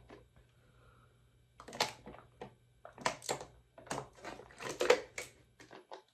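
Thin plastic water bottle crinkling and crackling in the hand while someone drinks from it, in irregular clusters of short crackles over a few seconds.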